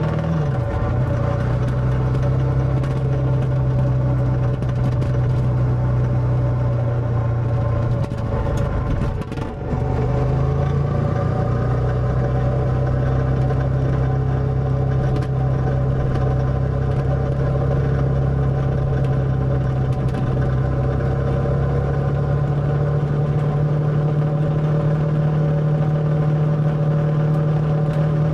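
Motorcycle engine running while riding. Its pitch drops sharply just after the start. About nine seconds in it dips briefly, then picks up again and climbs slowly in pitch for the rest of the time.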